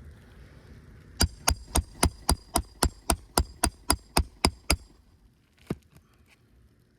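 Roofing hammer striking a metal nail-removal tool under an asphalt shingle to free a roofing nail: a quick run of about fourteen even, ringing blows, about four a second, then one more blow about a second later.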